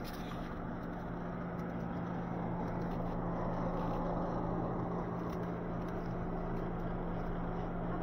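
A motor vehicle running steadily: an even engine hum under a rush of noise, growing a little louder over the first few seconds and then holding level.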